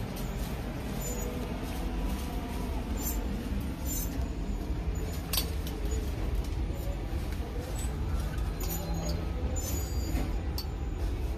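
Steady low rumble of a large store's background hum with faint distant voices, and a few light clicks and clinks as hanging bags are handled on metal display hooks.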